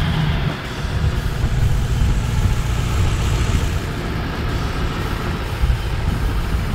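2006 Ford Mustang GT's 4.6-litre SOHC V8 idling steadily with a deep, even rumble.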